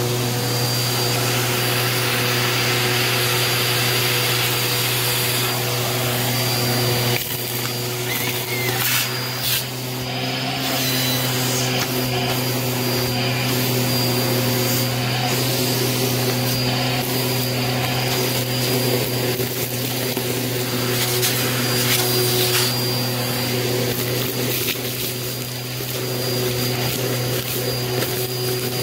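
Bissell Helix Turbo vacuum running with a steady motor hum and a thin high whine, its crevice tool sucking up a crunchy, gritty mess. Irregular crackles and clicks come through as bits are pulled up the hose.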